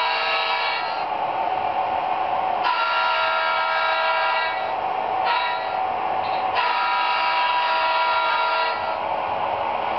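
MRC factory sound decoder in an Athearn Genesis HO-scale F3 A-unit model, playing a diesel horn through its small speaker over steady engine sound: the end of one long blast about a second in, then a long, a short and a long blast, the grade-crossing horn pattern.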